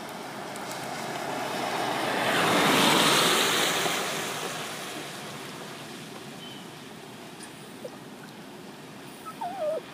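A vehicle passing on a wet road: a hiss of tyres on wet pavement that swells to a peak about three seconds in and fades away over the next few seconds. Near the end comes a brief wavering squeak.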